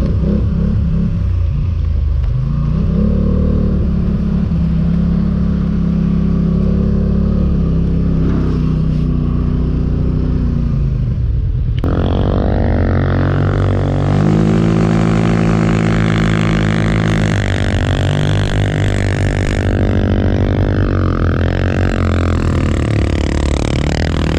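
ATV engine revving up and down as it is throttled through snow; its pitch rises and falls repeatedly. The sound changes abruptly about halfway through, with more high-pitched noise added.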